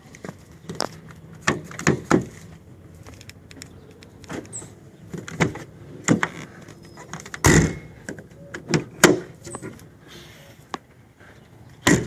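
Power door locks of a 2004 Nissan Armada being locked and unlocked over and over: a series of sharp clicks and clunks from the lock actuators, the loudest about seven and a half seconds in. The hatch lock is being cycled to work fresh silicone lubricant into its newly repaired latch mechanism.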